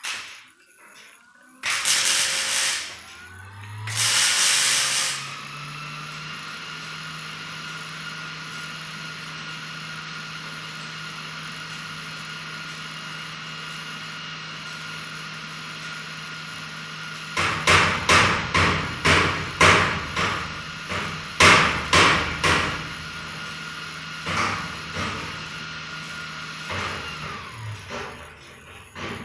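Two short crackling bursts of MIG tack welding on sheet metal. Then a motor spins up, runs steadily with a hum and whine for about twenty seconds and winds down near the end. In the second half there is a quick series of sharp metal strikes.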